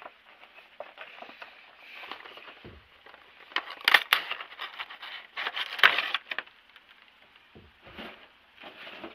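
Funko Pop packaging being handled and opened: rustling and crinkling, with two loud bursts of it about four and six seconds in and lighter scraping and clicks between.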